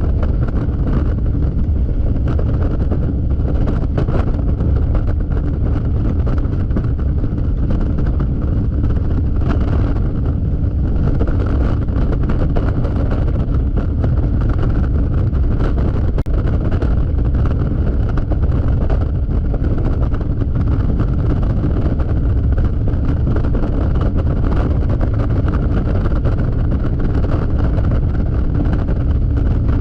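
Yamaha XMAX scooter riding at freeway speed: a steady, loud rush of wind buffeting the camera microphone over the drone of its single-cylinder engine.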